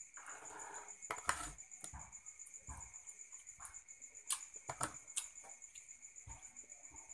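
A metal spoon clicking against a plastic container and bits of boiled balut eggshell, several sharp clicks a second or so apart, with soft chewing in between. A steady, finely pulsing high trill runs underneath.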